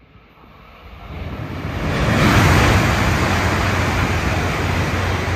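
A Tohoku Shinkansen bullet train passing through the station at high speed. A rushing noise of air and wheels swells over the first two seconds and stays loud, with a low hum under it.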